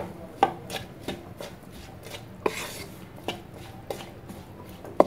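A wooden spatula stirring diced peas, carrots and potatoes in a non-stick kadai, scraping and knocking against the pan in irregular taps about every half second to a second.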